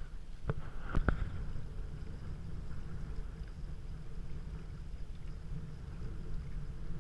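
Steady low wind rumble on the microphone of a camera riding on a kite hydrofoil board, with three short sharp knocks in the first second and a half.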